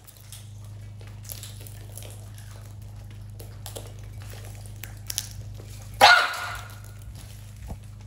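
Macaws feeding from metal trays of seed, with faint scattered clicks and scrapes of beaks in the seed over a steady low hum. About six seconds in comes one loud, harsh animal call lasting about half a second, either a dog's bark or a parrot's squawk.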